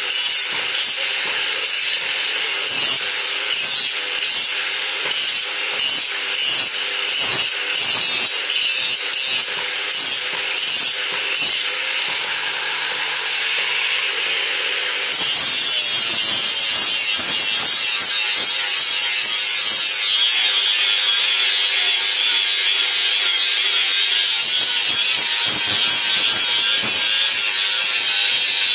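Angle grinder grinding the steel blade of a khukuri, a dense abrasive hiss. For the first half it swells and fades in repeated passes about once a second; about halfway through it becomes a louder, steady grind.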